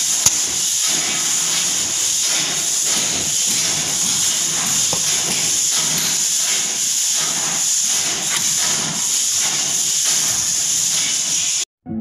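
A steady, loud hiss runs under a window crescent lock being worked by hand, and the lock gives one sharp click shortly after the start. The hiss cuts off suddenly near the end.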